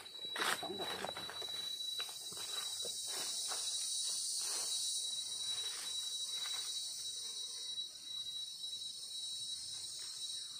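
Steady high-pitched insect chorus with a thin continuous tone, over short scrapes and rustles in dry leaf litter and soil as mushrooms are dug out by hand, the rustling mostly in the first two-thirds.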